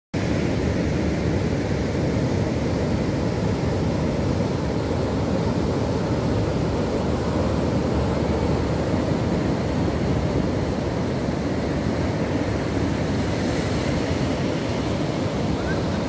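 Heavy Indian Ocean surf breaking and rolling onto a beach, a steady, continuous wash of waves.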